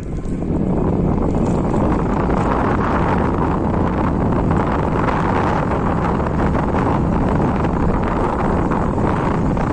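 Wind blasting the microphone while riding on a moving scooter: a loud, steady rushing rumble that grows over the first second and then holds, with the scooter's running beneath it.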